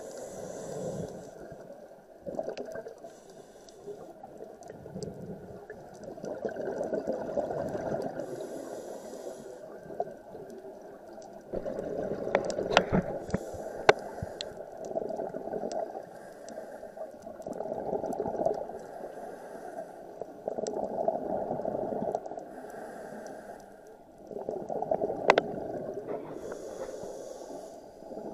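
A scuba diver's regulator breathing underwater: a hissing inhale followed by a longer gurgling rush of exhaled bubbles, repeating slowly about every four to five seconds, with a few sharp clicks, heard muffled through an action camera's waterproof housing.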